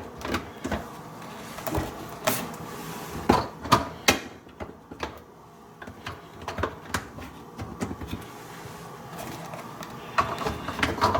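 Plastic filter parts of a Maytag dishwasher being handled and pushed into place, with a string of sharp, irregular clicks and knocks as the latches snap and lock.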